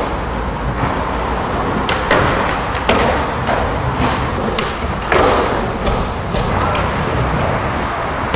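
Skateboards rolling on smooth concrete, with a few sharp board clacks and landings, the strongest about two, three and five seconds in, over a steady background rumble.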